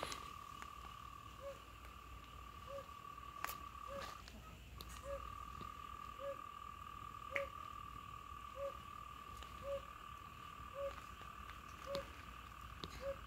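Frogs calling: a steady, continuous high chorus, with a short lower call repeating about once a second.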